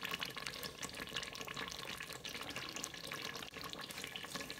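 Wet splashing and dripping as shredded fumbwa leaves are handled in a bowl of water, over a steady fine crackle from the thick peanut sauce simmering in its pot.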